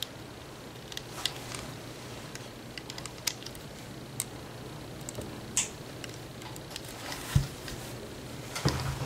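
Irregular small clicks and ticks of a metal hook against the plastic pegs of a rubber-band loom as bands are hooked and pulled over, with one louder knock about seven seconds in. A low steady hum runs underneath.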